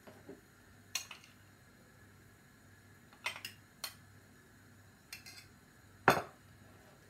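A metal spoon clinking several times against a ceramic bowl and a glass mixing bowl as gram flour is spooned into the kofta mixture, with the loudest clink about six seconds in.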